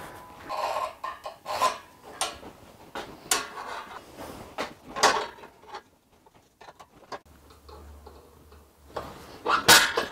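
Steel workpieces and tools being handled to get ready for drilling: irregular sharp knocks and clicks of metal, with a quieter pause after about six seconds and a louder knock near the end.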